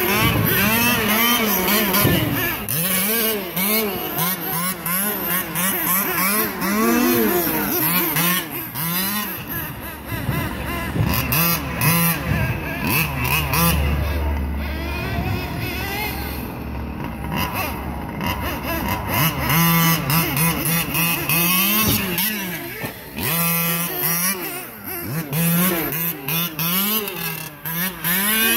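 A radio-controlled car's motor whining up and down in pitch as it repeatedly accelerates and slows, with scattered knocks.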